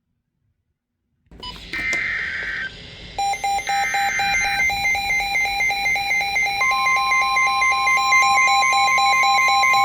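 Electronic emergency alert alarms going off after a second or so of silence: two short high tones, then a fast run of beeps. After about six and a half seconds a steady single tone joins, typical of a weather radio's warning alarm that comes before a new warning is read out.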